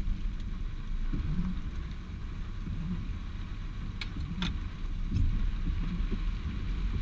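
Steady low rumble of a stationary vehicle in heavy rain, with a faint hiss of rain above it and two light ticks half a second apart about four seconds in.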